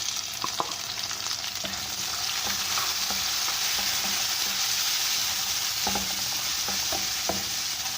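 Chopped tomatoes and slit green chillies sizzling steadily in hot oil with fried onions in a wok, growing a little louder after about two seconds, with a few light knocks from stirring.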